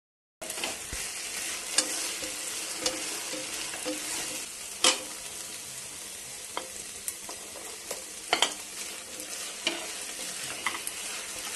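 Sliced onions frying in oil with a steady sizzle while a spatula stirs them. A few sharp clicks and knocks sound against the pan, the loudest about two, five and eight and a half seconds in.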